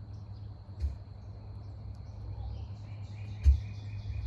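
Backyard ambience: a steady low rumble under a faint, thin, continuous high insect-like drone, with a quick run of short repeated bird chirps starting past the middle and two soft knocks, the second louder.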